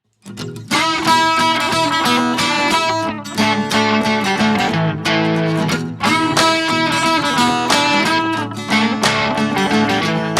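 Background music led by a plucked guitar, with a quick run of picked notes.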